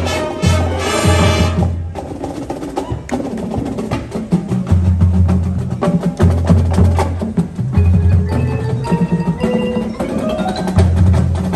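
Marching band playing its competition show. A full held chord cuts off about two seconds in. A percussion passage follows, with sharp wood-block clicks, repeated low held bass notes, and mallet-percussion notes stepping upward near the end.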